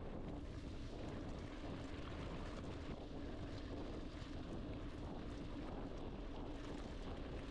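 Mountain bike being ridden on a dirt trail, heard from a bike- or rider-mounted camera: steady wind noise on the microphone with the rolling noise of its Continental Cross King tyres and small scattered rattles.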